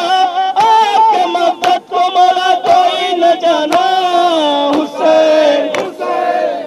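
A man chants a noha, a Shia mourning lament, into a microphone in long, sustained, melodic lines. Mourners beat their chests in matam, making sharp slaps roughly once a second.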